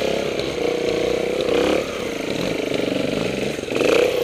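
Trials motorcycle engine revving in short bursts, its pitch rising and falling with the throttle, with a louder rev near the end.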